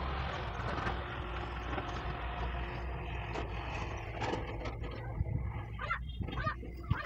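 A motor vehicle's steady engine noise, with a low hum, slowly fading as if it passes by. A few short bird calls come near the end.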